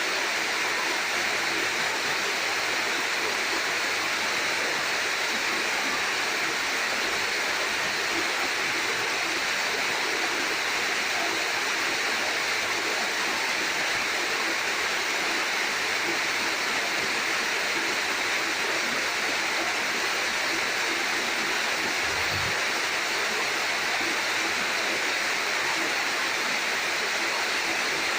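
Monsoon rainwater pouring down a small seasonal waterfall: a steady, unbroken rush of falling water.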